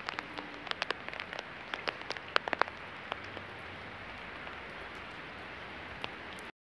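Steady rain falling, an even hiss with many sharp drip clicks of drops striking a close surface during the first few seconds. The sound cuts off suddenly near the end.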